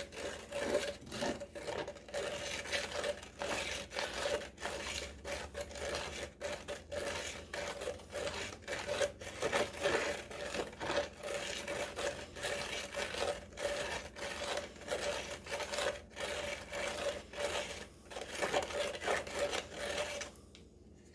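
Cement All and water being stirred with a stick in a plastic cup: a steady run of quick scraping strokes against the cup, over a faint steady hum. Both stop about a second before the end.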